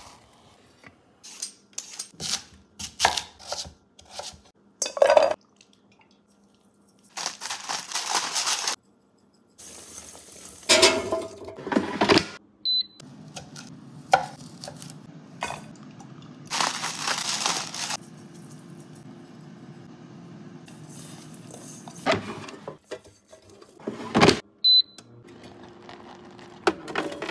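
Kitchen cooking sounds: metal pots and utensils clinking and knocking, a chef's knife chopping on a wooden cutting board, and a few hissing stretches of a second or two. A low steady hum runs through the middle.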